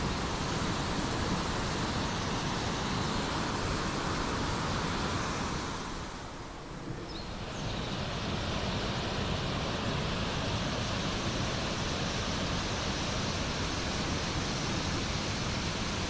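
Wide, low river cascade, water pouring over a rock ledge as a steady, even rushing noise. It dips briefly about six seconds in, then returns.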